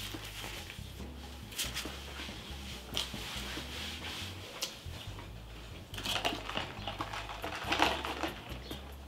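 Close-miked chewing and mouth sounds over a soft background beat with a repeating bass line. From about six seconds in, a straw is stirred and jabbed in a plastic cup of bubble tea, a quick run of clicks and scrapes that is the loudest thing here.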